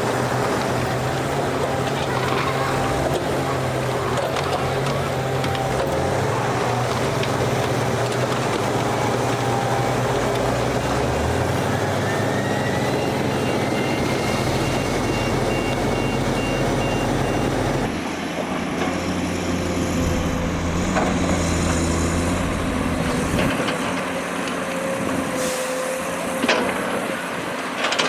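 Heavy diesel engines of earthmoving machinery running, with a reversing alarm beeping steadily through the first two-thirds. One engine revs up near the middle, and the engine sound changes abruptly about two-thirds in.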